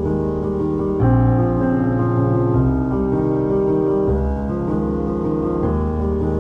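Background music led by piano, with sustained chords changing every second or two.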